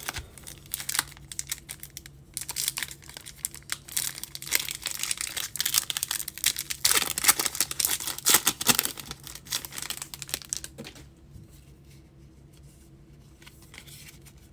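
Foil wrapper of a Bowman baseball card pack being torn open and crinkled in the hands: dense crackling, loudest in the middle, dying down about eleven seconds in.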